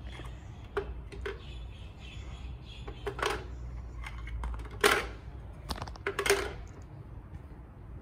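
Hard plastic toy pieces clicking and knocking together as a small toy wheelie bin is worked loose from plastic building blocks and handled: a handful of separate clacks, the loudest about five seconds in and another just after six.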